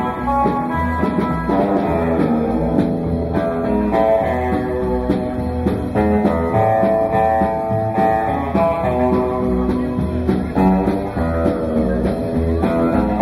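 Guitar-led music with a bass line and a steady beat.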